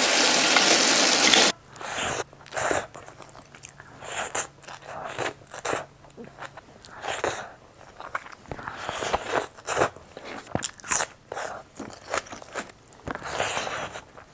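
Pork trotters sizzling as they fry in oil in a pot; the sizzle cuts off sharply about a second and a half in. Then close-up eating sounds follow: chewing, biting and crunching in short, irregular bursts as pork leg and rice are eaten by hand.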